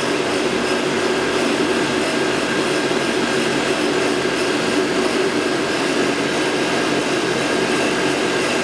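Electrovert Electra wave solder machine running in demonstration mode, with its fluxer air on: a steady whooshing hum holding a few steady tones, unchanging throughout.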